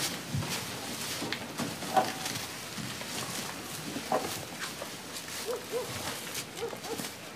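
Soft rustling and shuffling of people moving on a straw-covered floor, with scattered light clicks. A few short, low hoot-like calls come through, some in pairs near the end.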